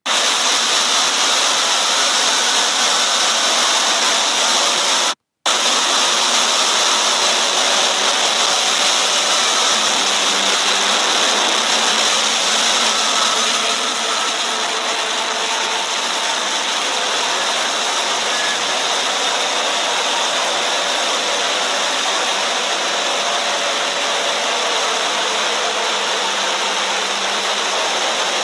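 Loud, steady noise that starts abruptly, cuts out for an instant about five seconds in, and drops slightly in level about halfway through.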